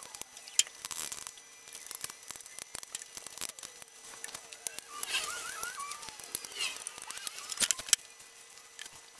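Paintbrush working paint onto a cast-iron Hercus 9-inch lathe bed: a run of soft, scratchy clicks and ticks from the bristles, with a couple of sharper knocks, over a faint steady hum.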